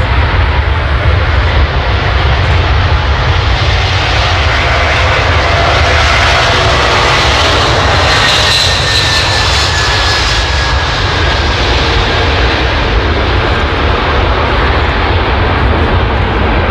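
Jet engines of the Antonov An-225 Mriya, its six turbofans, passing by with a steady low rumble throughout. The engine noise swells to a peak about eight seconds in, with a faint whine that slides slowly down in pitch, then eases off.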